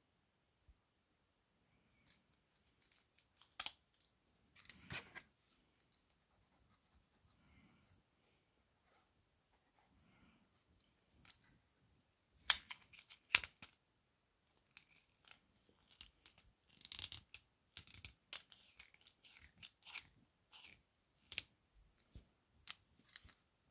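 Marker pen scribbling on sketchbook paper in short, scratchy strokes, with a few sharp clicks, the loudest about halfway through.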